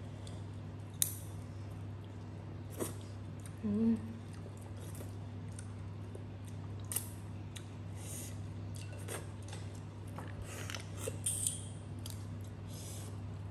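Cooked crab shell being cracked and picked apart by hand: scattered sharp cracks and small crackles, with some chewing, over a steady low hum.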